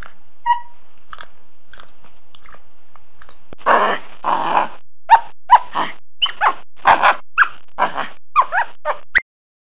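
Small monkey calling: a few short high-pitched chirps, then a quick run of about a dozen harsh, chattering screeches with squealing notes, cutting off abruptly near the end.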